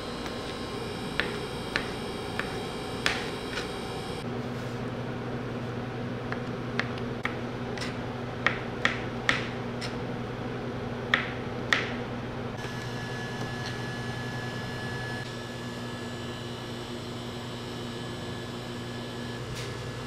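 Coffee-shop work sounds: a dozen or so short, sharp clicks and taps, scattered over the first twelve seconds, over a steady equipment hum. A lower hum sets in about four seconds in.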